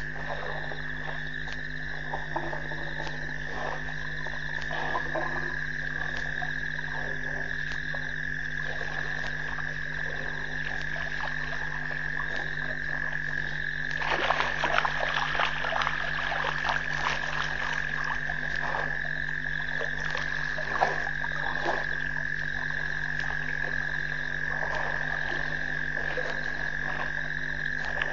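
A chorus of frogs calling, with a steady high trill and many short clicking croaks that grow denser and louder for several seconds from about halfway through. A low steady electrical hum sits underneath.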